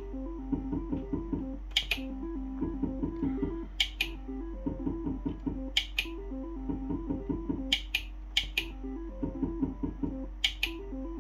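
Merkur Hot Frootastic slot machine playing its rapid, plucked-sounding reel-spin jingle as the reels turn spin after spin. Sharp double clicks come about every two seconds, as each new spin starts.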